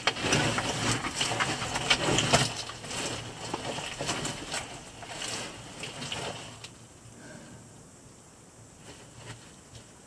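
Caver crawling through a tight, muddy cave passage: oversuit and boots scraping and sliding on mud and rock, with irregular knocks. It dies down about seven seconds in.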